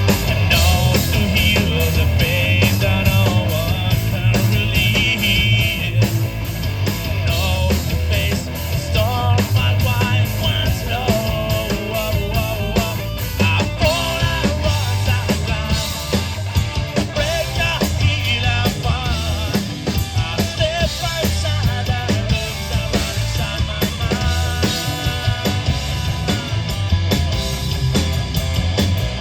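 Rock band playing live: drum kit, electric guitars and bass with a singing voice.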